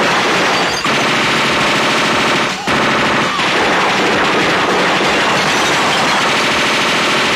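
Action-movie gunfire sound effect: sustained machine-gun fire, dense and nearly unbroken, with brief dips about a second in and twice around the three-second mark.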